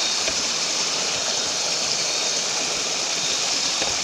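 River water rushing over rocks: a steady, even rush with a few faint clicks.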